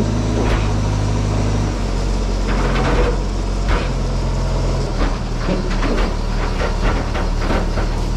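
Engine of a heavy farm machine running steadily, with frequent knocks and clanks.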